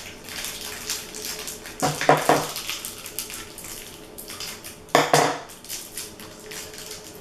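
Plastic candy wrappers crinkling as small candies are unwrapped by hand, a run of irregular crackles. Two short vocal sounds break in, about two and five seconds in.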